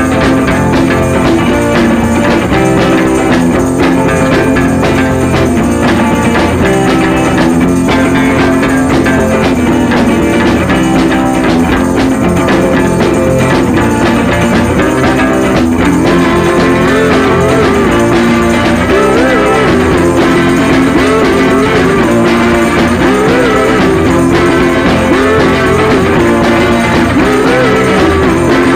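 Background music: a continuous rock-style track with guitar.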